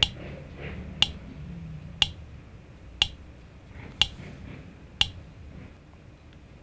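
Audio/video sync test app on a phone playing its test click, one short sharp click each second, six in all, then stopping. The clicks are the timing signal for a test of Bluetooth earbud delay.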